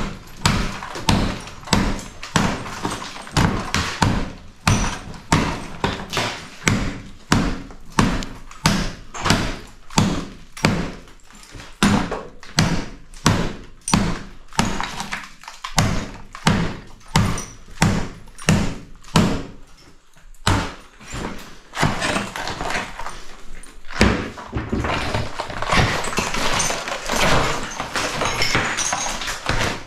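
Hammer blows on bathroom wall sheeting, about two a second and evenly spaced, knocking the sheeting loose. After about twenty seconds the separate blows give way to a denser, continuous cracking and scraping as the broken sheeting is torn away from the wall.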